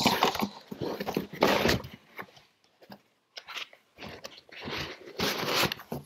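Cardboard shipping box and its packing rustling and scraping as a large e-bike battery is lowered back into it and the flaps are handled. There are louder crunchy bursts about a second and a half in and again near the end, with a quieter stretch between.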